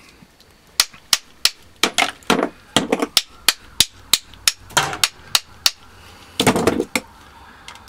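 Repeated sharp metal-on-metal blows, about three a second, with a quicker cluster near the end, as the welded steel core of a small transformer is struck around its weld to break it apart.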